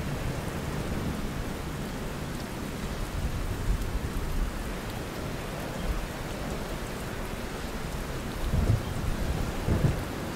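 Low, gusting rumble of wind buffeting and handling noise on a GoPro action camera's microphone as its wearer walks a rocky trail, with a few louder thumps near the end.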